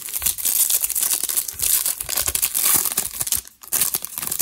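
Foil wrapper of a Panini Prizm basketball hobby pack being torn open and crinkled by hand: dense, loud crackling that breaks off about three and a half seconds in, followed by a few more crinkles.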